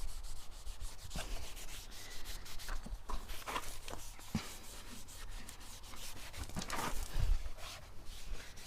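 A cloth rubbing silicone lubricant into a car's rubber door seals, a run of irregular scratchy wiping strokes. The seals on this 2008 Toyota Auris are dried out and creak over bumps.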